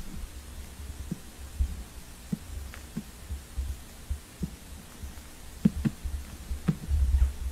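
Soft, irregular thumps and clicks, about one a second, over a low rumble: footsteps and handling noise on a handheld camera moving through a dark building.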